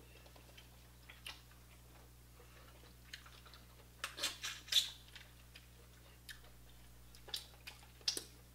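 Eating sounds from a seafood boil of crab legs: scattered short clicks and cracks of shell and chewing, loudest in a quick cluster about four to five seconds in and again near the end.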